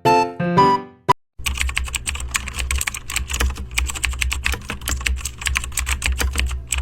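Rapid typing on a computer keyboard: a quick, irregular run of key clicks over a low hum, starting about a second and a half in after a few short musical notes.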